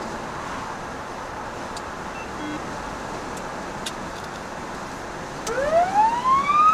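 Steady road and engine noise inside a moving car, then about five and a half seconds in an emergency siren starts up loud, its wail rising steadily in pitch.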